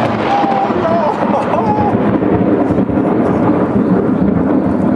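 Close thunder rolling loudly and steadily just after a sharp clap, a continuous deep rumble that does not die away.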